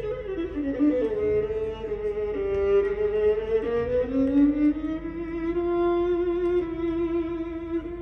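Recorded bowed-string music, a violin over a lower string line, played through an Audio Note Kondo valve-amplifier hi-fi system and its loudspeakers. Two slow melodic lines glide between notes, with vibrato on the held notes in the second half.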